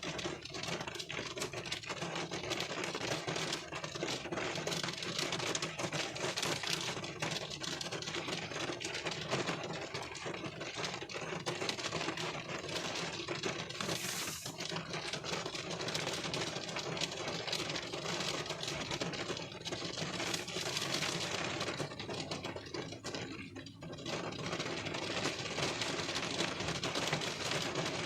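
Rain pattering on a car's windshield, heard from inside the car: a dense, steady stream of drops ticking on the glass, with a brief rise of hiss about halfway through.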